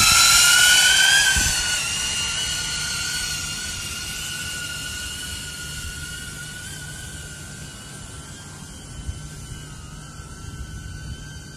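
DJI Avata FPV drone's propellers whining at a steady high pitch as it climbs away after takeoff. The whine is loudest in the first second or two and fades as the drone flies off.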